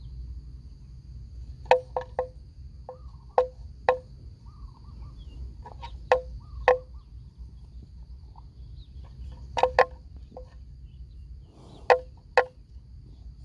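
Hollow wooden clonks of one pitch, mostly in pairs about half a second apart, repeating every couple of seconds, typical of a wooden bell swinging on a walking, grazing water buffalo. A steady high insect drone and a few faint bird chirps sound behind them.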